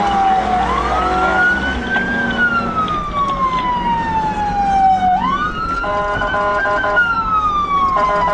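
Police car siren wailing, slowly rising and falling in pitch twice, with a second, steady-pitched multi-tone sound cutting in briefly about six seconds in and again near the end, over steady road noise.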